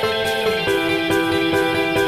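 Background music: sustained instrumental notes over a steady beat, the melody shifting to a new note about two-thirds of a second in.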